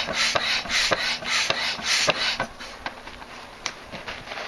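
Hand-operated barrel air pump inflating a float tube's inflatable seat: a rush of air with each stroke, about two strokes a second. The pumping stops a little past halfway, leaving quieter rustling and a few clicks as the tube is handled.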